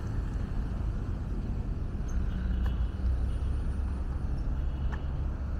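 Road traffic: a steady low rumble of passing vehicles, with a faint engine hum rising out of it twice and a couple of light clicks.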